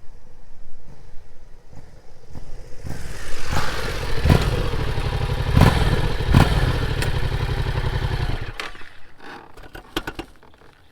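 Yamaha MT-07's parallel-twin engine on its stock exhaust, the motorcycle riding past: it builds about three seconds in, is loudest for about five seconds, then drops off and fades near the end.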